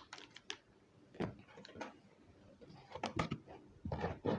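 Irregular small clicks, taps and rustles of cosmetic products and their packaging being handled, in several short clusters.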